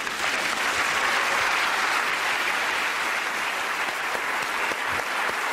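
Live audience applauding after a stage performance: dense, steady clapping.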